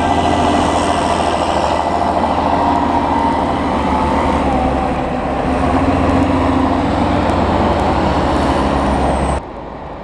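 Large Claas tractor engines running under load as the tractors drive over a maize silage clamp: a loud, steady, deep engine hum that drops off suddenly shortly before the end.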